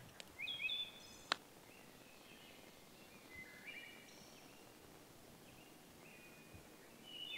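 Faint songbird chirps, short rising and falling calls repeated now and then, with a single sharp click about a second in.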